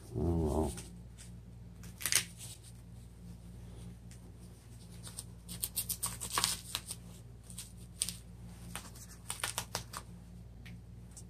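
Handling noise of a fabric wrist guard being pulled on and its Velcro strap worked: scattered rustles and short scratchy rips, loudest about two seconds in and in a cluster around the middle. A brief hummed voice sound at the very start.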